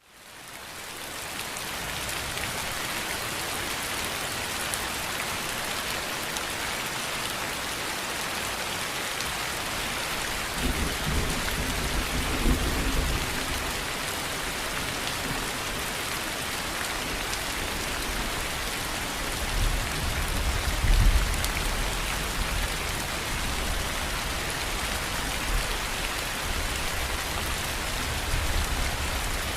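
Steady heavy rain falling on a surface, fading in at the start, with low rumbles of thunder twice, about a third of the way in and again past the middle.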